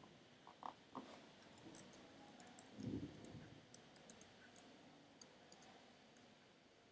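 Faint, scattered clicks of computer keys being typed one at a time, with a brief soft low thud about three seconds in.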